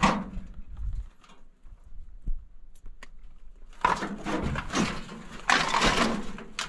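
Footsteps crunching on loose rock and gravel. A few faint clicks come in a quieter stretch, then two longer bouts of crunching from about four seconds in.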